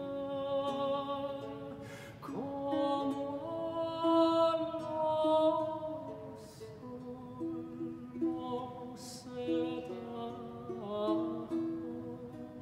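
A tenor voice sings a slow wordless melody in long held notes over a plucked baroque guitar, with a downward sliding note about two seconds in.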